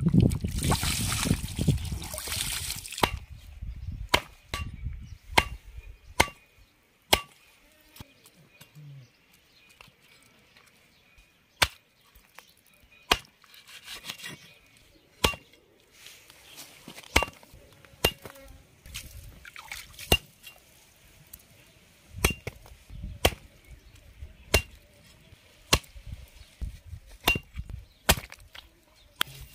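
A heavy iron cleaver chopping chicken pieces on a wooden block: sharp, separate chops about every one to one and a half seconds. The first few seconds are rustling handling noise.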